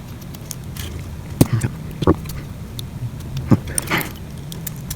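Small hand tools clicking, tapping and scraping against a phone's housing during battery removal: a few separate sharp clicks and a short scrape near the end, over a steady low hum.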